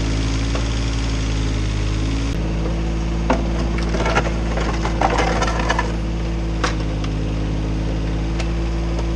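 Komatsu PC15 mini excavator engine running steadily, its note shifting a little over two seconds in. Over it come sharp metal clanks and knocks as the steel bucket is set down against the ground and the other buckets, mostly between about three and seven seconds in.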